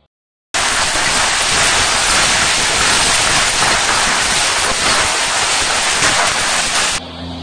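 Heavy hail and rain pouring down, a loud dense steady hiss with faint pattering impacts. It starts about half a second in and cuts off abruptly near the end.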